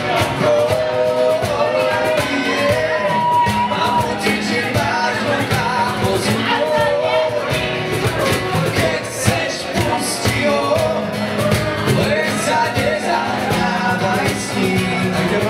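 Live acoustic band: two acoustic guitars strummed with a cajón keeping the beat, and a male voice singing the melody into a microphone.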